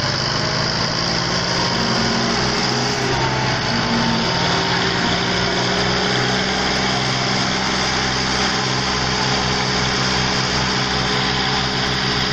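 Tractor engine running steadily with a pulsing low rumble, working under load in a pulling trial of strength.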